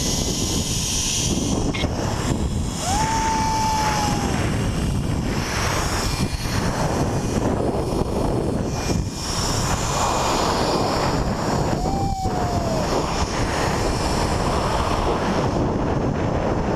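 Wind rushing over the microphone of a rider's camera speeding down a zipline, mixed with the trolley rolling along the steel cable: a loud, steady roar. Twice a short high tone rises and dips away, about three seconds in and again near twelve seconds.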